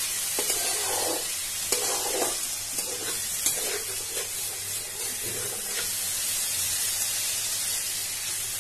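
Spice paste and potato pieces sizzling in oil in a wok, stirred and scraped with a spatula, with a few taps of the spatula on the pan in the first part. The masala is fully fried and the oil is separating from it.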